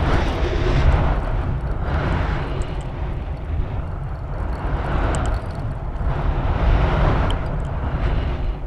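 Wind buffeting the microphone of a balloon payload's camera as it climbs just after lift-off: a heavy low rumble with a hiss that swells and eases every second or two.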